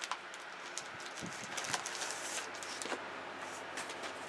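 Faint rustling with a few light clicks and crinkles as a children's pop-up book is handled and opened carefully.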